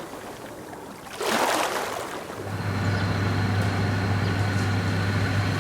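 Outdoor coastal ambience: a short rush of noise about a second in, then from about two seconds in an engine running steadily with a low hum.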